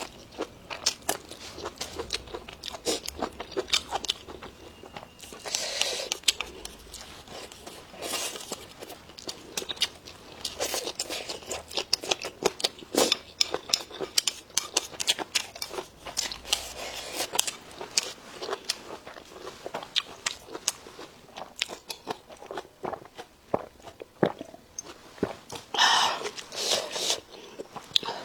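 A person chewing food close to the microphone, with many crisp crunching bites and wet chewing sounds, a few louder crunches along the way.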